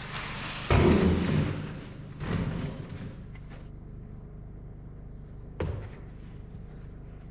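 A few dull thumps, the loudest about a second in and two weaker ones later, then the steady high chirring of crickets from about three seconds in.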